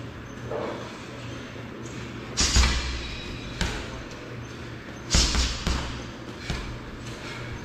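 Gloved strikes landing on a hanging heavy bag: two hard, sharp thuds with a slap about two and a half and five seconds in, and a few lighter hits between them.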